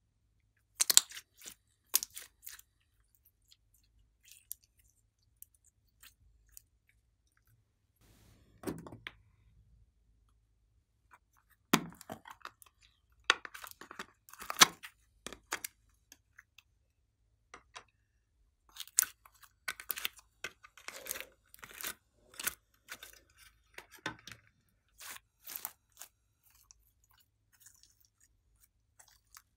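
Slime being handled: squeezed, peeled out of a plastic mold and stretched, giving bursts of sticky crackling and clicking with quiet gaps between.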